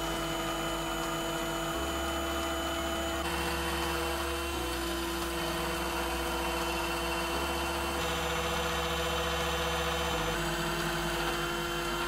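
Roland SRM-20 desktop milling machine running steadily, its spindle whining as a 1/32-inch end mill cuts the outline through a copper-clad FR1 circuit board. The low hum under the whine shifts several times as the cut moves along.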